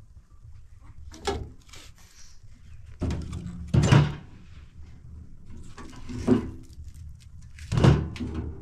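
Sticks of firewood being pushed into a lit sheet-metal wood stove, knocking and scraping against the metal firebox: a handful of separate knocks, the loudest about four seconds in and near the end.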